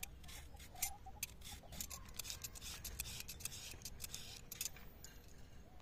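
Vegetable peeler shaving thin strips off pieces of dried coconut: a faint, irregular series of short scrapes and clicks, several a second.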